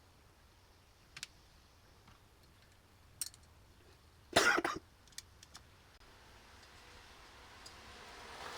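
A few light clicks and taps of small carburetor parts and a screwdriver being handled, with one louder short noise a little past the middle. A faint rustle builds near the end.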